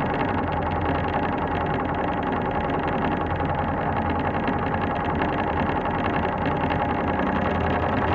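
Elevator in motion: a steady mechanical hum from the lift's drive and moving car, with a few constant tones over an even rumble.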